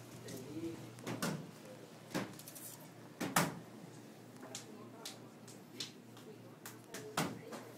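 Classroom background: faint chatter with scattered knocks and clacks of things being set down and handled, the loudest about three and a half seconds in.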